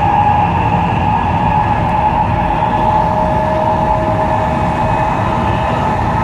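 Taiwan High Speed Rail train at speed, heard in the gangway between two cars: a loud, steady rumble and rushing noise with a constant whine over it.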